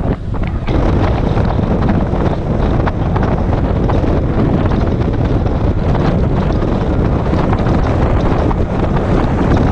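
Steady, loud wind noise buffeting the microphone of a selfie-stick camera as the rider moves along on an electric unicycle; it dips for a moment right at the start, then stays even.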